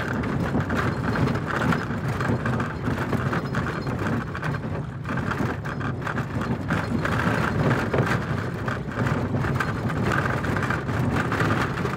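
VW T3 Syncro van driving on a dirt track, heard from inside the cab: a steady engine and road rumble with constant rattling.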